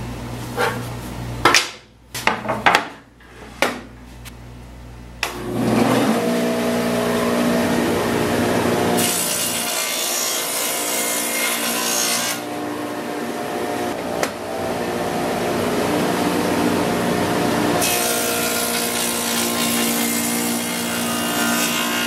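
Table saw running, with a few knocks a couple of seconds in and the motor winding up about five seconds in; it then runs steadily while the blade cuts grooves (dados) in a hardwood side panel, with a loud cutting hiss in two passes, one around the middle and one near the end.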